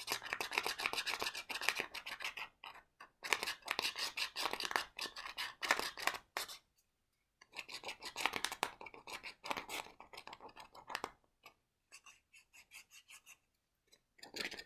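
Rapid scratching on a plastic gift card, working at its scratch-off strip, in three long runs with short pauses, then lighter scattered scratches near the end.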